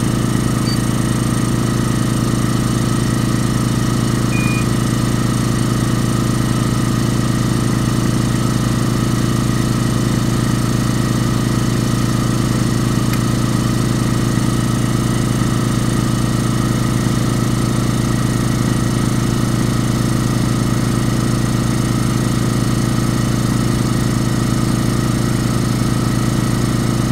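Hot air rework equipment running: the Hakko FM-206 station's hot air pencil and the preheater blowing hot air onto a PCB during the reflow stage of the soldering profile. A steady low hum with a hiss of air over it, unchanging throughout.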